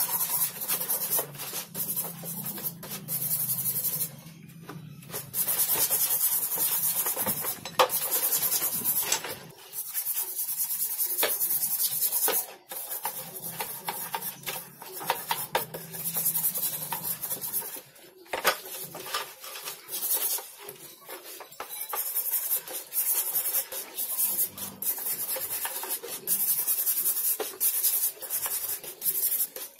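Small hand brush scrubbing rusty steel shear blades and parts in a tub of soapy water, scraping in runs of quick strokes with short pauses between them, with some sloshing of water.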